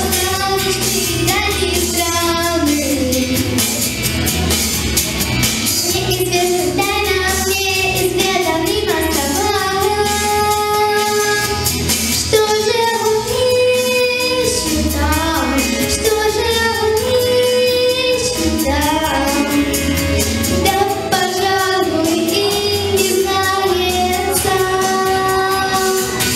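A young girl singing a Russian children's pop song into a microphone over a recorded backing track with a steady beat and bass.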